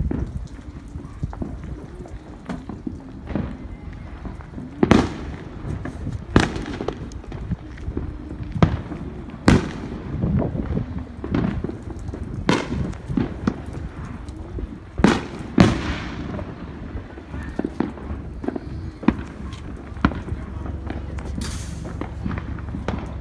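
Fireworks going off in the neighbourhood: a string of separate sharp bangs and pops, one every second or two, with lighter crackles in between.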